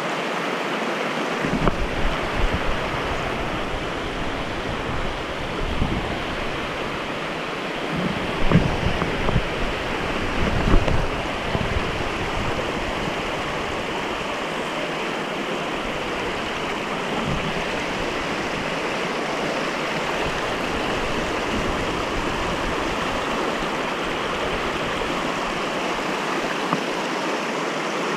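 Mountain stream rushing steadily over and between boulders. Irregular low rumbling bumps of wind or handling on the microphone come through in the first half, strongest about ten seconds in.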